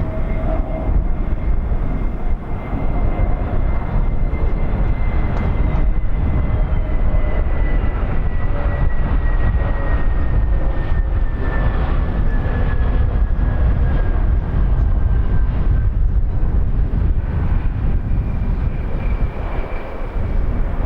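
Airliner engines running loud and steady, with a high whine that slowly falls in pitch.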